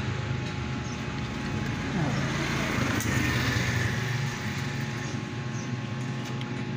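Steady low rumble of road traffic, with one engine note falling in pitch about two seconds in.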